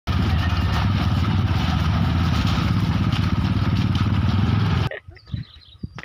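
Motorcycle being ridden along a muddy, rutted dirt track, heard from the rider's seat: steady engine and road noise that cuts off suddenly about five seconds in, leaving only a few faint chirps.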